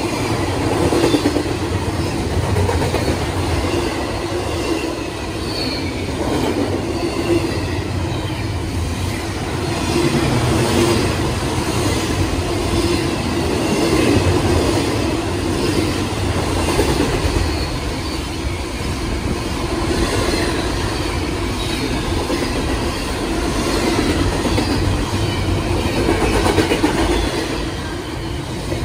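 Double-stack intermodal train's well cars rolling past at close range: a steady rumble and clatter of steel wheels on the rail.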